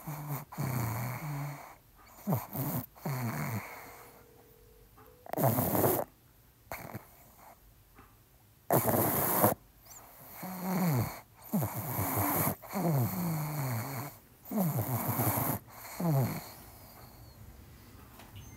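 Pug snoring: a run of rough, irregular breaths, several sliding down in pitch, with short quiet gaps between them and a longer lull midway.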